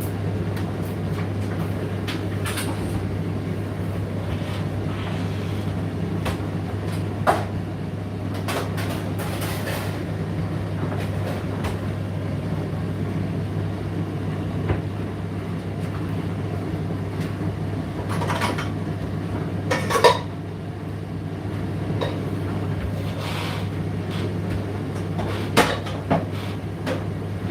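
Indesit IDC8T3 condenser tumble dryer running, a steady low hum from its motor and turning drum, with scattered clicks and knocks as the load tumbles, the loudest knock about two-thirds of the way in.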